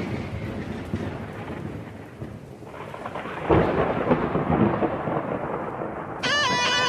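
Thunderstorm: thunder rolling and rumbling over a hiss of rain, with a second roll of thunder swelling about halfway through. Guitar music comes in near the end.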